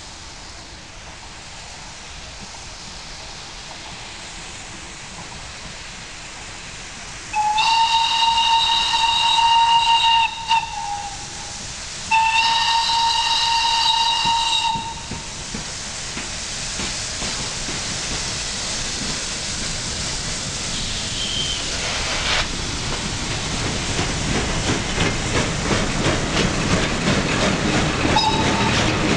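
CFR 230.516, a 4-6-0 steam locomotive, blows two long whistle blasts of about three seconds each. Its rhythmic running noise then grows steadily louder as it nears with its train and passes, the coaches rolling by near the end.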